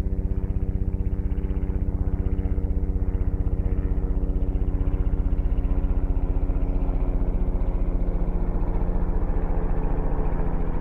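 Helicopter main rotor: a fast, even train of low blade thumps over a steady low drone with several held tones. These are the impulsive low-frequency pressure pulses of a large-diameter rotor's blades passing through the wake of the blades ahead.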